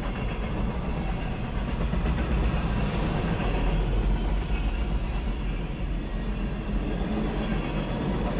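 A CSX mixed freight train's refrigerator cars, boxcars and autoracks rolling past: a steady rumble of steel wheels on rail, heaviest in the low end.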